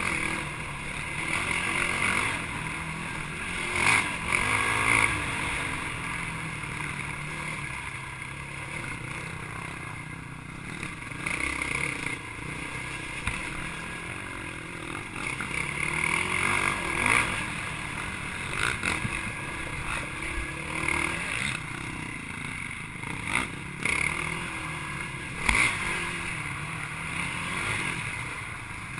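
Racing ATV (quad) engine revving up and down as it is ridden hard over a rough trail, heard close from the machine itself. Several sharp knocks come through from the bumps.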